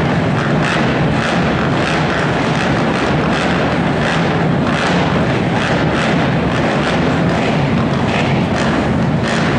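Several racing ATV engines idling and revving together at the starting line: a loud, dense engine din with repeated throttle blips.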